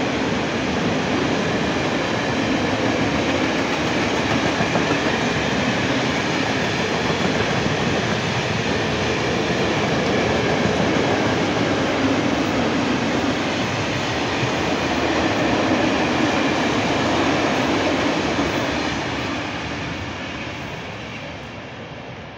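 Freight train of open-top wagons passing at speed, its wheels clattering steadily on the rails. The noise fades away over the last few seconds as the end of the train passes.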